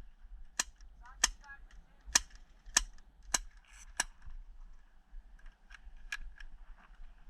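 Airsoft guns firing single shots: six sharp cracks about every half second to second, then a few fainter ones later on.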